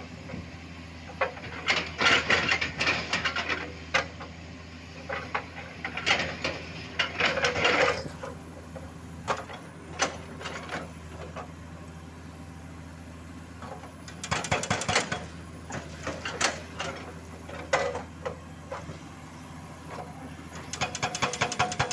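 Excavator's diesel engine running steadily while rock and steel clatter and knock in irregular bursts as the hydraulic breaker is worked against the stone. Near the end the hydraulic breaker starts hammering, a fast, even run of strikes.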